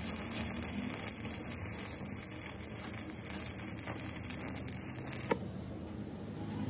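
Stick (shielded metal arc) welding arc crackling and hissing steadily as weld metal is built up on the broken end of a splined truck driveshaft. The arc cuts off suddenly a little after five seconds in, leaving a steady low hum.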